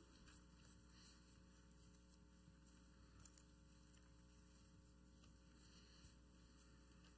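Near silence: a steady electrical mains hum, with a few faint, brief rustles of Bible pages being turned.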